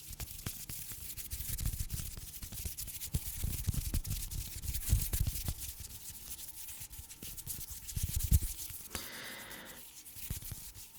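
Irregular rubbing and scratching with dense crackles and soft low thumps, and a short rushing hiss about nine seconds in.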